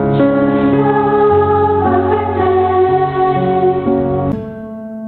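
Choral music: voices holding slow sustained chords over low bass notes, thinning to a few quieter held notes about four seconds in.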